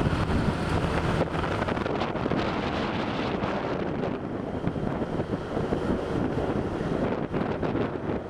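Wind buffeting the microphone: a steady, rough rushing noise with frequent gusty flutters and no clear tone.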